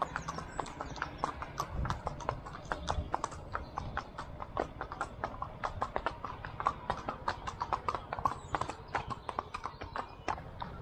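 Hooves of a ridden pony and horse clip-clopping on a tarmac road: a quick, uneven run of sharp clops.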